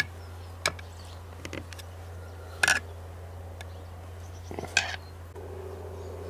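Sharp metallic clicks and clinks of small parts being handled and fitted onto a chainsaw's crankcase: about five scattered clicks, the loudest just under three seconds in, over a steady low hum.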